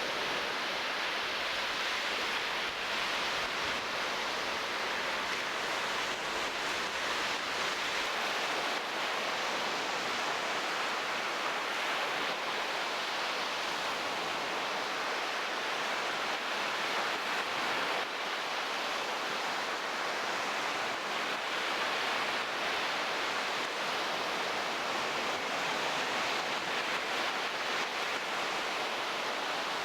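Steady rushing noise of waves washing on the shore, unchanging throughout.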